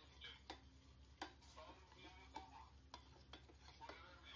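Faint, irregular clicks and scrapes of a metal spatula stirring thick onion-cashew masala in a stainless steel pan as it is fried down until the oil separates, over a steady low hum.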